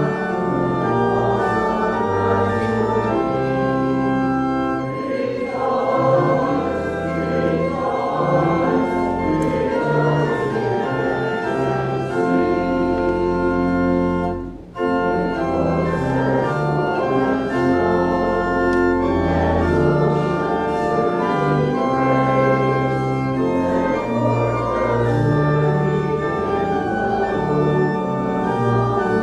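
Church organ playing a hymn, with the congregation singing along; the music breaks off briefly about halfway through, then carries on.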